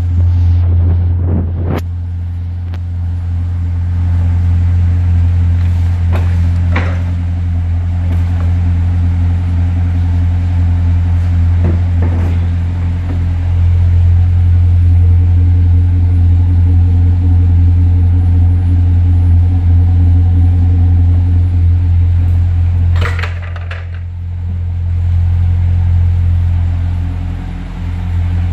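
Holden Statesman WH II's engine idling steadily through a 2.5-inch RedBack cat-back exhaust with the rear muffler deleted, a low steady drone. A few light knocks come about 7, 12 and 23 seconds in.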